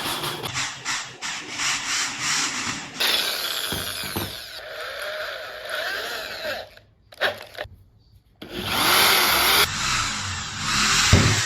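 Wood being hand-sawn with rhythmic strokes, then a power tool running on wood in short spells that cut off abruptly, with a brief quiet gap in the middle.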